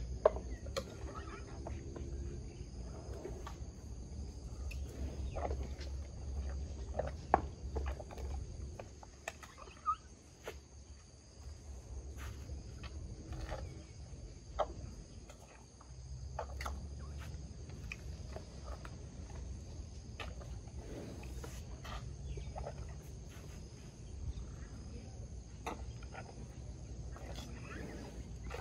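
Scattered knocks, clicks and rustles from an Asian elephant picking food out of a plastic bowl with her trunk and eating it, over a steady high insect trill and a low rumble.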